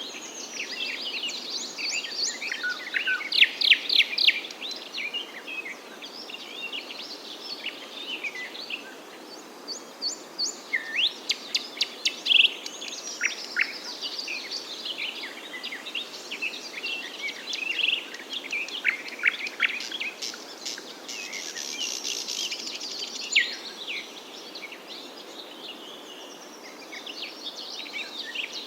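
Several songbirds chirping and singing, with short high notes and quick falling sweeps that come in dense, rapid runs now and then, over a steady background hiss.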